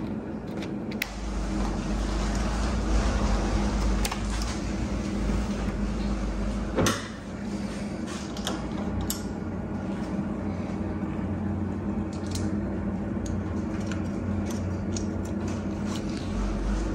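Hand-tool handling noises: small clicks, scrapes and rubbing as a screwdriver works on the soft top's metal front weatherstrip retainer, over a steady low hum. There is a sharper click about seven seconds in.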